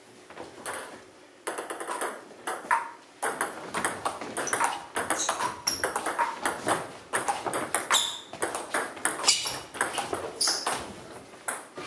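Table tennis rally: the celluloid-style ball clicks sharply off the rubber bats and the tabletop in quick succession. The clicks come thick and fast after a quieter first second or so.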